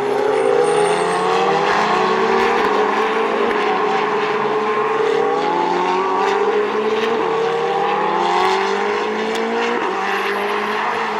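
Ferrari Challenge race cars' V8 engines accelerating hard out of a corner, the engine note climbing in pitch and dropping back at each upshift, several times over.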